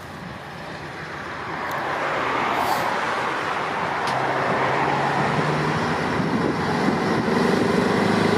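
Road traffic: a car's tyre noise swells as it passes, then the diesel engine of a classic Scania V8 truck drones steadily and grows louder as the truck comes out of the roundabout.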